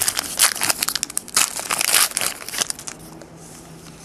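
Shiny foil wrapper of a 2010 Panini Classics football card pack crinkling and crackling as it is torn open and pulled off the cards. The crackling is dense for about the first two and a half seconds, then dies down.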